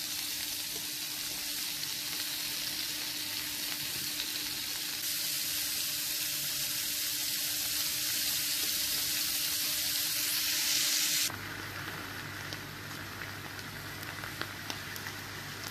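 Potato slices and broccoli sizzling in olive oil in a frying pan, a steady hiss that grows slightly louder. About eleven seconds in it cuts off to a quieter sizzle from veal steaks in cream sauce in the pan, with a few faint ticks.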